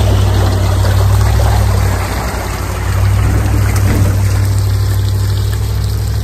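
Tow vehicle's engine running steadily as a boat trailer with an aluminium jon boat is hauled up a launch ramp, with water pouring and draining off the hull and outboard.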